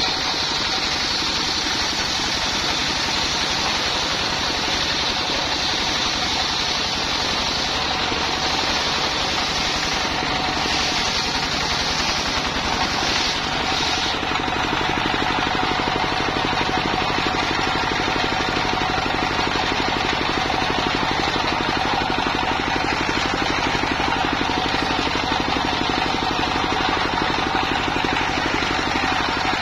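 Single-cylinder diesel engine running steadily, driving a circular sawmill blade that rips lengthwise through a log. The high cutting sound of the blade stops about halfway through, and the engine keeps running.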